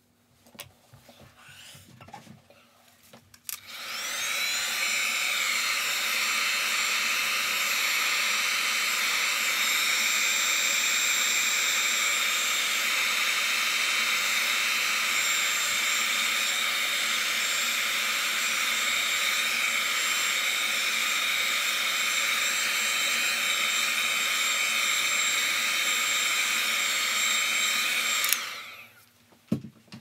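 Handheld hot-air dryer blowing onto a wet watercolour painting to dry it. It is switched on about three and a half seconds in, whines briefly up to speed, runs steadily with a whining hiss, and is switched off near the end.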